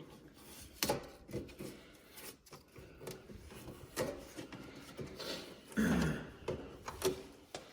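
Hands working on a car taillight and its fittings: scattered clicks, taps and rubbing of plastic and small parts, with sharper knocks about a second in and near four and seven seconds.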